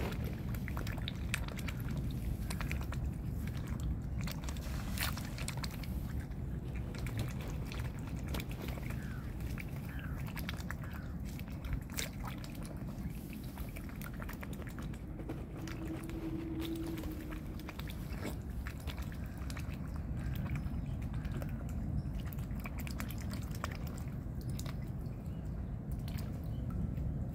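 Mute swan dabbling at the water surface with its bill, scooping up floating grain: a run of irregular wet clicks and slurps, over a steady low rumble.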